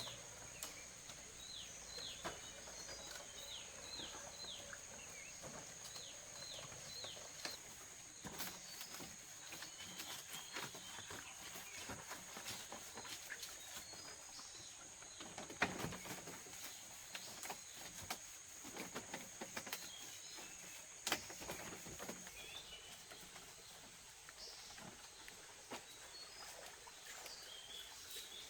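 Outdoor ambience with bird chirps and a steady high-pitched drone that stops about 22 seconds in, broken by scattered sharp knocks and taps; the loudest knocks come about 16 and 21 seconds in.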